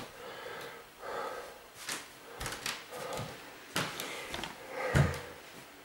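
Things being handled and set down: a string of light knocks and rustles, with a heavier thump about five seconds in.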